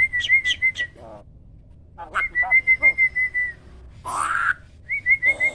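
Starling (jalak) singing: three phrases of a fast, wavering whistle held on one pitch, each starting with sharp clicks, and a harsh rasping call about four seconds in.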